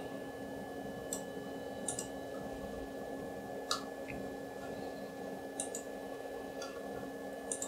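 Computer mouse button clicking while working through desktop menus: about six short, sharp clicks, some in quick pairs, spaced a second or two apart. A steady low hum from the machine runs underneath.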